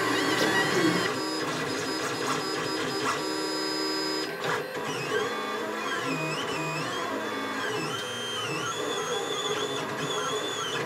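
Lulzbot Mini 3D printer running a print, its stepper motors whining. For the first few seconds it holds several steady tones; after that the tones slide up and down and hold again as the print head changes speed and direction.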